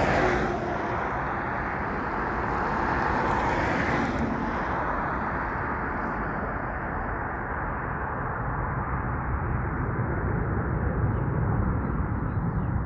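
Jet airliner's engines at takeoff power as it lifts off and climbs away: a broad rushing noise whose hiss fades about four to five seconds in, leaving a steady low rumble.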